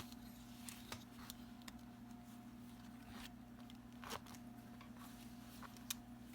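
A few faint, scattered clicks and taps of metal multi-tools being handled, over a steady low hum.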